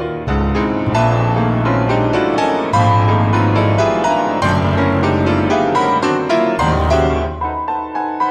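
Piano playing a contemporary piece: quick repeated dissonant chords over deep bass notes. Near the end the bass drops out and the repeated chords carry on a little more softly.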